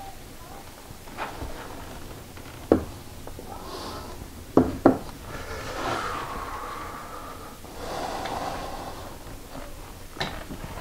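PVC drain fittings and cans of PVC cement being handled on a wooden board: a sharp knock a little before the middle and two more close together just after it as pieces are set down, with quieter rubbing and rustling of the cement being brushed on in between.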